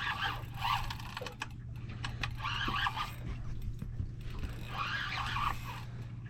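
Spinning fishing reel cranked in four or five short spells, each a rapid ticking rattle about a second long, over a steady low hum.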